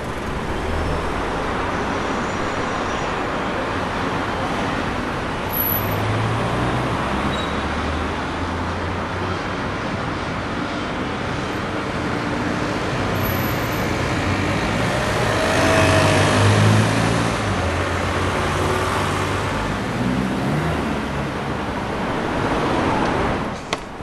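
Steady road-traffic noise, swelling louder around the middle and cutting off abruptly near the end.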